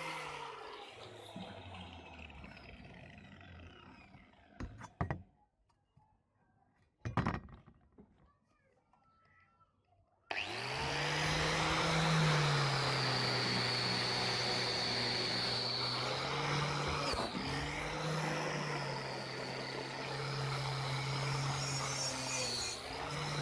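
Electric power tool motor winding down after being switched off, a few clicks in a short quiet spell, then switched on again about ten seconds in and running steadily, its pitch dipping slightly now and then as if briefly loaded.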